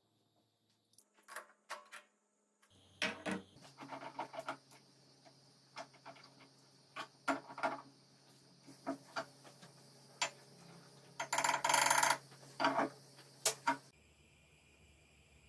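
Metal tooling being handled on a workbench: scattered clicks, clinks and knocks of a drill chuck, machine vise and collet being picked up and fitted, with the busiest run about three quarters of the way through, over a faint steady hum.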